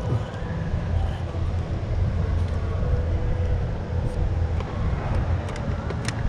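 Steady low hum of an electric trolling motor running, with a faint steady whine above it. A couple of sharp clicks come near the end.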